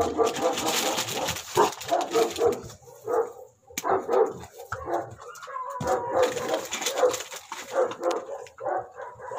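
Small dogs whining and yipping in quick short calls, with a few barks mixed in.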